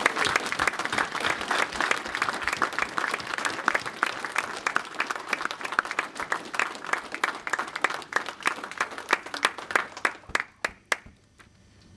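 Audience applauding: dense clapping that thins out to a few last separate claps and stops about eleven seconds in.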